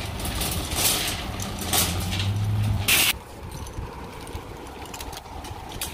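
Metal shopping cart rattling as it is pushed and handled, loudest in the first three seconds and quieter after.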